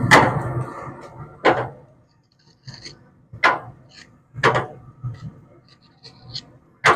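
Handling clatter at a grill: about five sharp knocks and clanks spread over several seconds, with faint rustling and light ticks between.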